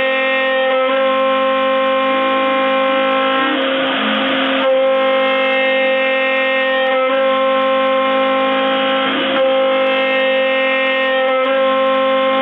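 CNC router spindle running at a steady high pitch while a 6 mm cutter roughs a wooden block turning on the rotary axis. Two short bursts of rougher cutting noise come about four and nine seconds in.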